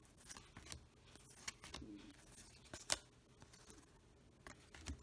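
Baseball cards being handled and flipped through one by one: faint rustling with soft, scattered clicks of card against card, one sharper click about three seconds in.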